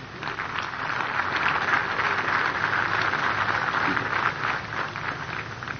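Audience applauding. The clapping swells over the first second or so, holds, and tapers off near the end.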